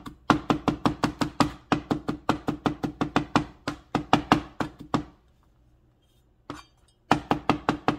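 Kitchen knife rapidly chopping garlic on a cutting board: quick, even knocks at about five a second. The chopping stops about halfway through, a single knock falls in the pause, and then it starts again.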